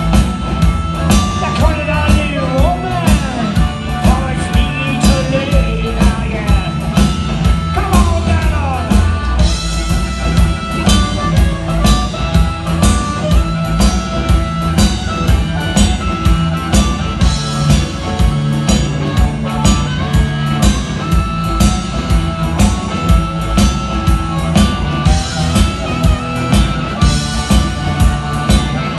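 Blues-rock band playing live in an instrumental break: a lead line with bent, gliding notes, most likely the electric guitar, over bass and a steady rock drum beat.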